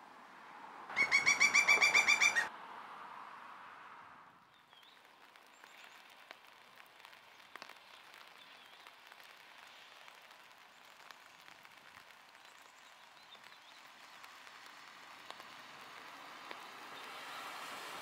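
A pileated woodpecker's loud, rapid run of ringing call notes, about a dozen a second, lasting a second and a half from about a second in. Then only faint outdoor background with a few small distant bird chirps.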